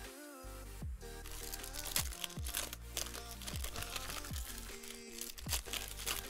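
Background music with a steady beat of deep bass hits, with plastic wrapping crinkling over it.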